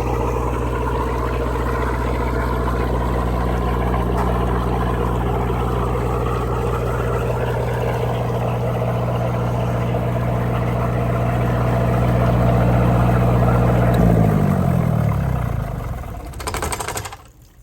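Cummins Onan 13.5 kW marine diesel generator running steadily, then shut down about fourteen seconds in, its pitch falling as it runs down to a stop. A brief clatter follows near the end.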